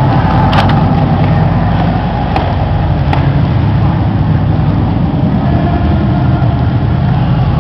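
Loud, steady rumble of a gun-mounted camera's microphone being jostled as it moves. A few sharp clicks come about half a second, two and a half and three seconds in.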